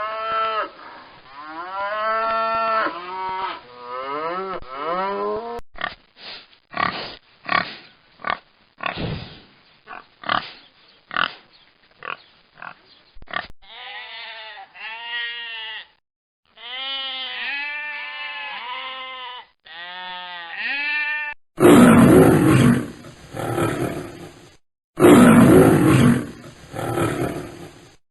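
Animal calls played one after another: pitched, mooing-like calls, then a run of short, separate grunts, then more pitched, arching calls, and near the end three loud roars from a big animal, the loudest part.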